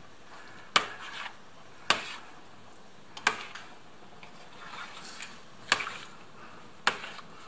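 An enamel soup pot being handled while diced potatoes are pushed down into the broth: five sharp knocks against the pot, spread out at irregular intervals, with soft rubbing and stirring noises between.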